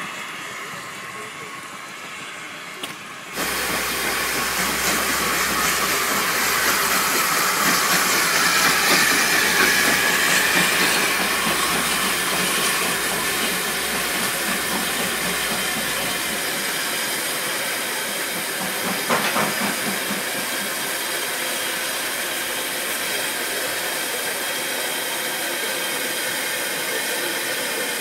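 Steam locomotive venting steam: a loud hiss starts suddenly a few seconds in, swells, then settles to a steady hiss.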